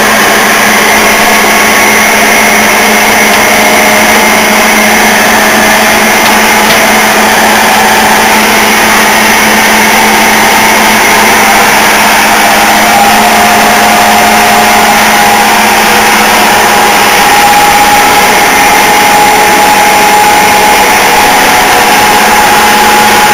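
Old turret lathe running under power: its electric motor, belt drive and headstock gearbox make a loud, steady mechanical hum and whir. A gear whine comes in about halfway and climbs slightly in pitch. Somewhat noisy, but with no clunks or grinding that would point to bad gears.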